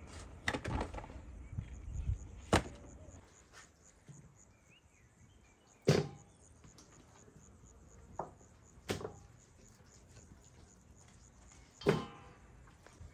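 A handful of sharp knocks at irregular intervals, about six in all, the last with a brief ringing tail, over a faint steady high-pitched pulsing drone.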